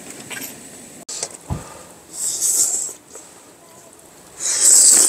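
Someone slurping kimchi ramen noodles: two slurps, one a little after two seconds in and a louder one near the end, with a low thump about a second and a half in.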